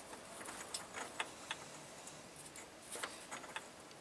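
Faint, scattered light metallic clicks and ticks from metal parts being handled in the opened gearbox of a T-40AM tractor, a few sharper ones about a second in and again around three seconds.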